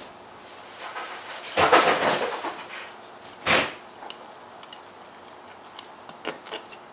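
A metal stirring knife scraping and knocking against a stainless steel pot of thick, boiling sodium silicate: a loud scrape about two seconds in, a sharp clank a second and a half later, then a scatter of small ticks.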